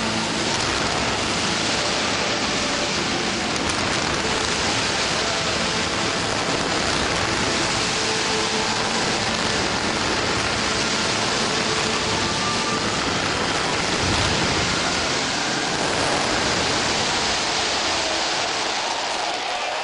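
A large fireworks display going off without pause, its many bursts blending into a loud, steady crackle. The low rumble fades near the end as the display finishes.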